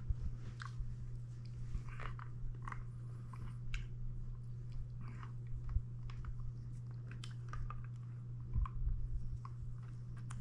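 Wet mouth sounds of a hard-candy lollipop being sucked: irregular small clicks and slurps as the cinnamon Toe of Satan sucker is worked against the lips and teeth, over a steady low hum.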